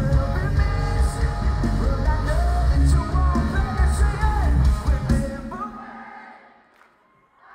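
Live metalcore band playing loudly with sung vocals, drums and bass-heavy guitars. The song ends about five seconds in and the sound dies away to near quiet.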